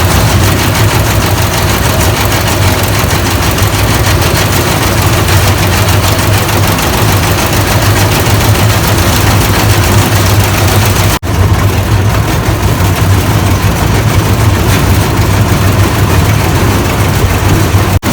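The mini toy train's two-cylinder engine running steadily and loudly close by, with a strong low hum. The sound drops out for an instant about eleven seconds in.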